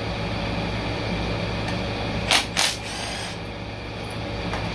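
Two short bursts of a cordless power tool spinning bolts on the valve body of a Ford 10R80 ten-speed automatic transmission, a little over two seconds in, over a steady low hum.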